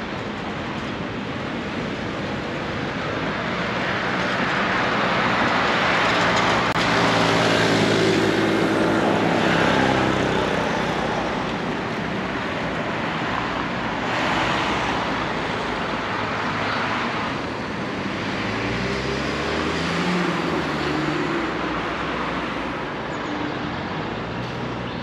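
City street traffic. A motor vehicle passes close, loudest about eight seconds in, its engine tone dropping as it goes by. Another vehicle pulls away with a rising engine tone near the twenty-second mark.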